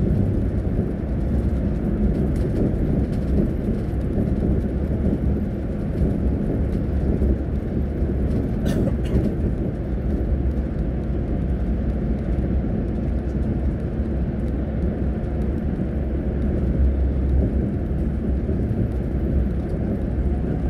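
Steady low engine and road rumble heard from inside a moving bus cruising on a highway, with a couple of light clicks about nine seconds in.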